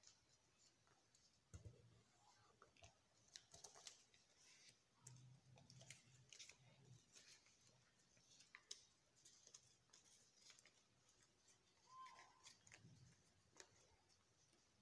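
Faint rustling and crinkling of a sheet of paper being folded and shaped by hand into a paper airplane, with scattered soft clicks.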